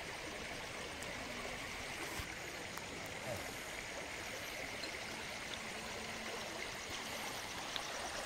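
Steady rushing outdoor background noise, with a few faint clicks.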